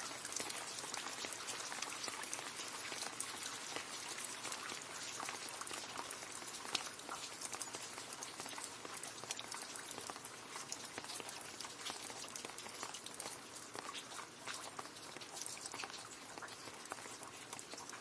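Steady rain falling into a puddle: dense, continuous patter of drops splashing on water, with individual drop impacts standing out, easing slightly toward the end.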